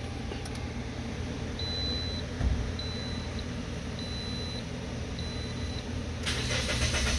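A high electronic beep repeating about once a second, then about six seconds in the 2009 Toyota Matrix's starter begins cranking the engine: the crank, no-start fault.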